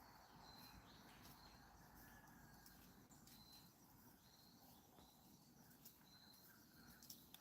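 Near silence: faint outdoor ambience with short high chirps repeating about once a second, and a small tick near the end.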